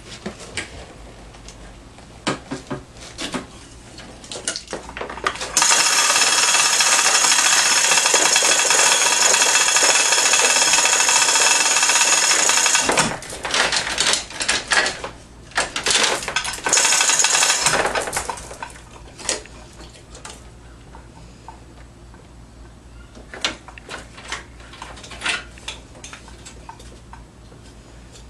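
Power tool run while undoing bolts on an engine being removed: one long steady run of about seven seconds starting some five seconds in, then several shorter bursts. Scattered metal clicks and knocks of hand tools come before and after.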